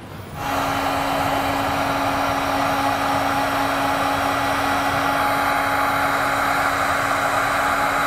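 Electric heat gun switched on about half a second in and running steadily: a rush of blown air with a constant motor hum, as it shrinks a heat-shrink butt connector on a wire.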